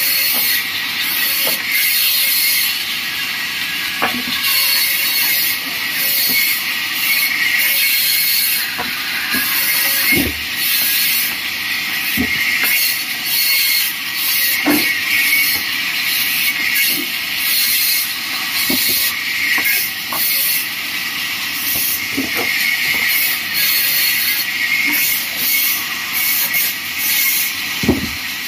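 Vertical bandsaw running and cutting timber: a steady high-pitched hiss of the blade in the wood, pulsing as each slab is fed through. A few short knocks of wood are heard along the way.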